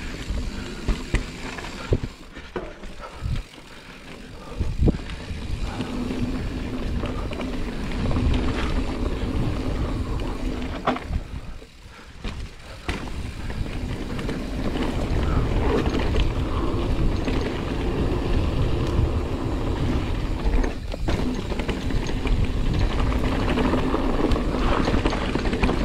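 Giant Reign 29 full-suspension mountain bike ridden down rocky singletrack: a continuous rush of tyre and trail noise with sharp knocks as it hits rocks. It eases briefly about twelve seconds in, then grows louder toward the end.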